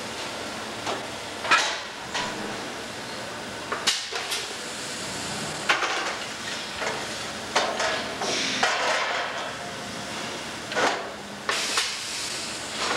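Sheet-metal truck fender stock clanking against the steel die and clamps of a rotary compression bending machine, several separate knocks over a steady shop hum, some followed by short hisses.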